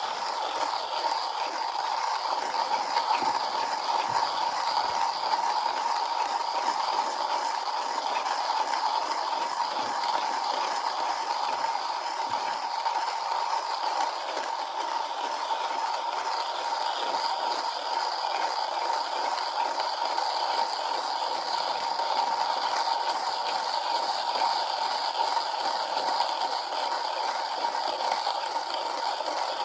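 Comandante C40 hand coffee grinder grinding a load of coffee beans: a steady, dense crunching crackle as the beans are crushed between the conical burrs while the handle is turned.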